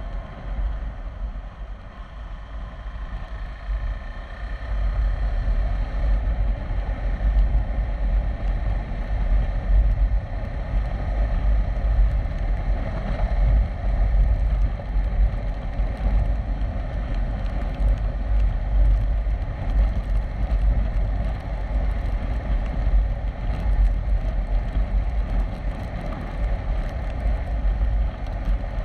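A KTM 390 Adventure's single-cylinder engine runs steadily in fourth gear at cruising speed, under heavy wind buffeting on the microphone. The wind gets a little louder about five seconds in.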